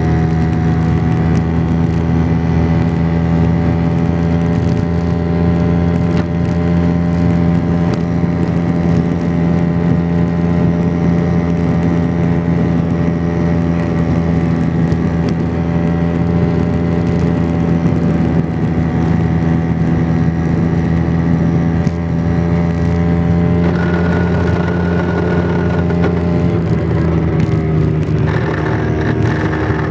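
Vespa PX 125's single-cylinder two-stroke engine running at steady riding revs, heard from on board the scooter, with the engine note changing near the end as the throttle shifts.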